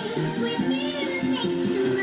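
Background music with held notes over a bass line.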